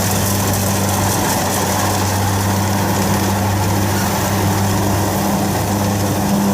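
Kubota DC60 combine harvester running steadily while cutting rice: an even diesel engine hum under a broad, constant machine noise.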